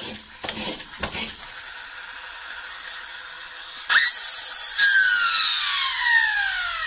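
Flywheel friction motor of a Tonka Clutch Popper toy pickup spun up hard about four seconds in after a few clicks, then winding down with a high whine that falls steadily in pitch. The whine is its 'turbo' sound, made by a little plastic piece vibrating against the motor's dust cover.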